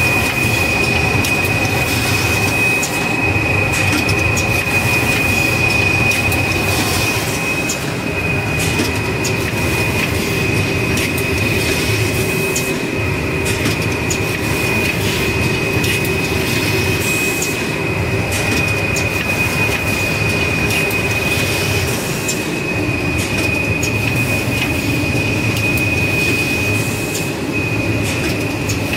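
Automatic toilet-roll and kitchen-towel packing machine running: a dense, steady mechanical clatter under a continuous high-pitched whine, with irregular sharp clicks and knocks.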